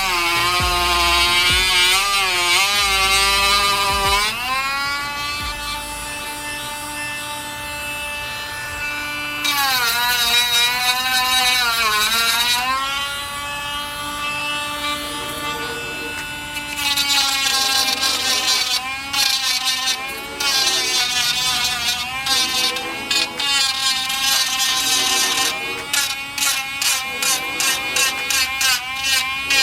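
A small power tool's motor whines steadily while trimming the plastic edges of a gauge mount. Its pitch sags for a couple of seconds about ten seconds in. In the second half it runs in quick short bursts.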